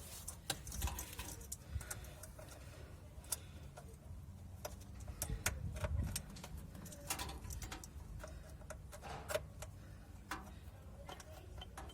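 Irregular small clicks and light metallic taps of wire connectors being fitted to a washing machine's heating element terminals, over a low steady hum.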